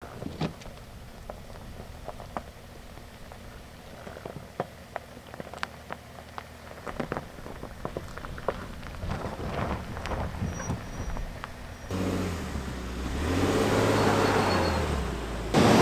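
Pickup truck engine running at low speed with scattered clicks and crackles. About twelve seconds in, the engine note rises, holds and falls back.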